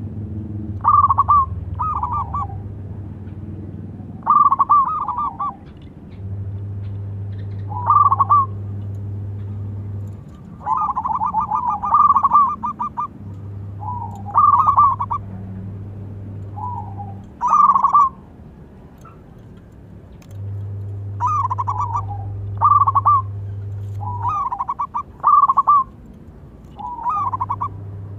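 Zebra dove (perkutut) cooing: short staccato, rippling phrases repeated every second or two. A low steady hum comes and goes beneath it in stretches of a few seconds.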